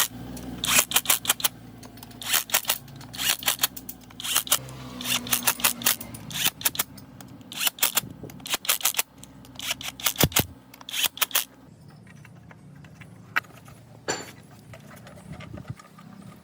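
Bursts of rapid metallic clicking and rattling, in short clusters about once a second for some eleven seconds, then only a couple of single clicks, over a low steady hum.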